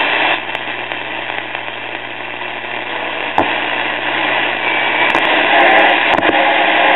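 Newcomb B100 six-tube radio's speaker giving out a steady hiss and hum, with a sharp click about three and a half seconds in and a cluster of crackles near the end. The set has cut out again, a sign of an intermittent fault that a tap on the cabinet had briefly cured.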